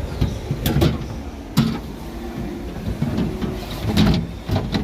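A few sharp knocks and clatters of hard plastic as parts of a refrigerator's interior are pulled out and handled, about four hits, the loudest near the start and near the end.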